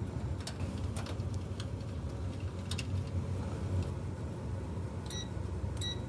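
Two short electronic beeps from the electric fireplace heater's touch control panel as its buttons are pressed, about five and six seconds in. Before them come a few light clicks from screws being driven into the sheet-metal housing. A steady low hum runs underneath.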